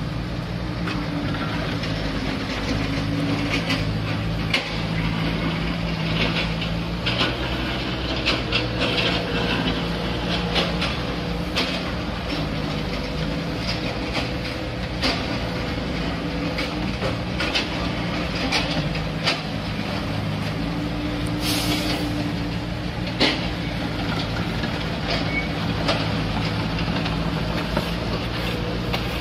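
Bobcat S130 skid-steer loader's diesel engine running under work, its pitch shifting as it drives and moves the bucket, with scattered clanks and scrapes from the steel bucket on the asphalt. A brief hiss comes about two-thirds of the way through.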